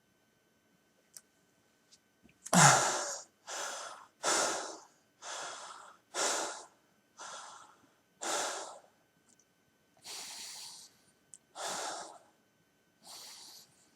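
A man's long held breath bursts out in one sudden loud exhale about two and a half seconds in, the end of a failed breath-hold. Rapid heavy gasping breaths follow, about nine of them, spacing out toward the end as he recovers.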